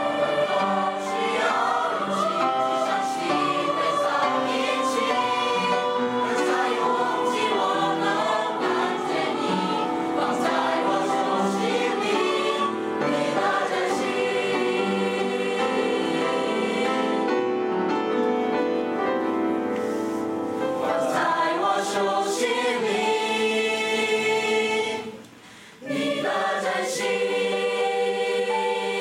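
Mixed high-school choir of boys and girls singing a song in Chinese, with many voices together. The singing breaks off for under a second near the end, then resumes.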